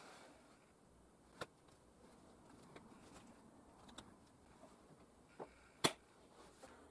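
A few light, sharp knocks and clicks over quiet room tone, like wooden jig parts and a workpiece being handled and set in place. The sharpest knock comes near the end.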